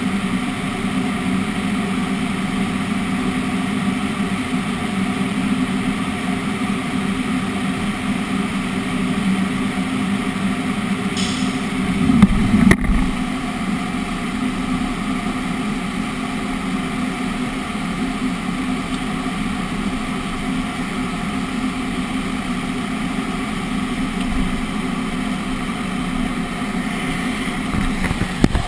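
Woodworking CNC machining centre running with a steady mechanical hum, with a brief louder clunk about twelve seconds in.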